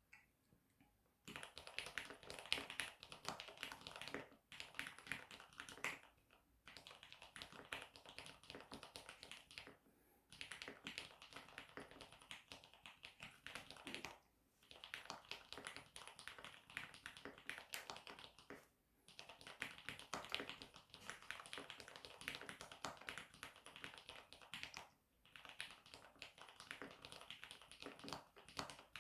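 Typing on a Mode Eighty mechanical keyboard with linear Cherry MX Black switches: rapid runs of key clacks, broken by short pauses every few seconds.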